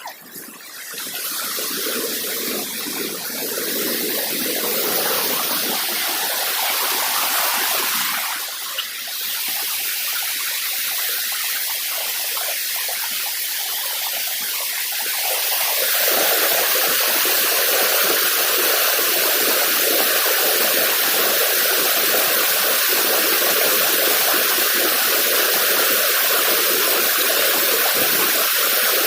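River water flowing, a steady rushing noise that swells about a second in and grows louder again around sixteen seconds in.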